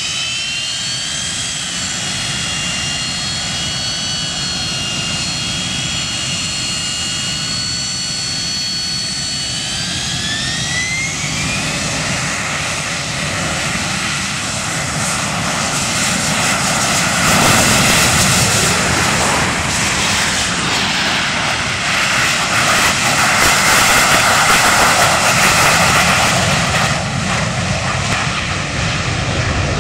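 AV-8B Harrier II's Rolls-Royce Pegasus turbofan: a high whine that rises in pitch at the start, holds steady, and rises again about a third of the way in as the engine spools up. About halfway through it gives way to a loud jet roar as the Harrier runs to takeoff power for a short takeoff and lifts off.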